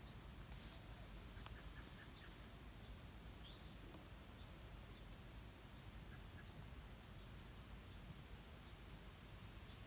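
Near silence: faint field ambience with a steady high insect drone and a few faint bird chirps.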